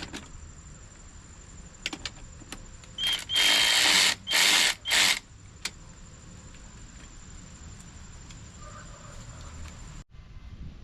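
Power drill driving bolts in four short bursts, about three seconds in.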